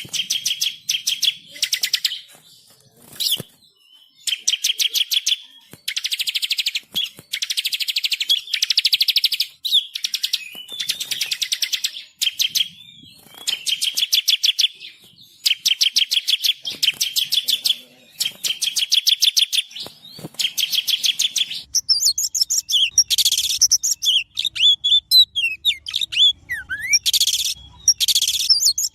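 Songbirds singing: phrase after phrase of fast trills made of rapid, evenly spaced notes, each phrase a second or two long. About three-quarters of the way through, the song changes to a more varied twittering with quick rising and falling whistles.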